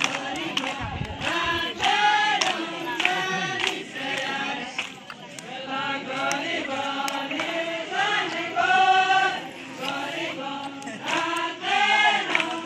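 A group of voices singing a folk dance song together in short, repeated phrases.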